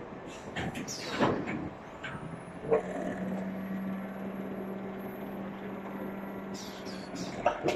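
Automatic powder bagging machine running: pneumatic hisses and clacks about a second in, then a steady low machine hum with a thin high whine for several seconds, ending in a hiss near the end.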